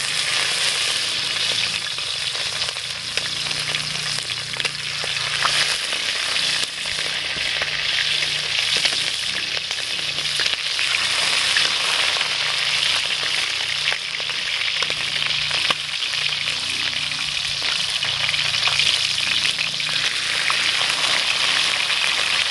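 Marinated chicken wings deep-frying in hot oil in a wok, a steady sizzle with fine crackling.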